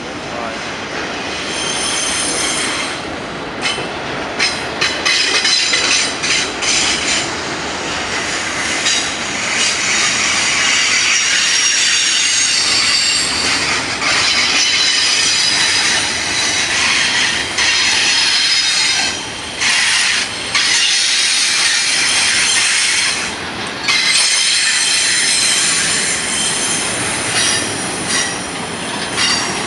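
Freight train's double-stack container well cars rolling through a curve, their wheel flanges squealing against the rail in several high, steady tones over the rumble and clatter of the wheels. The squeal drops out briefly a few times and comes back.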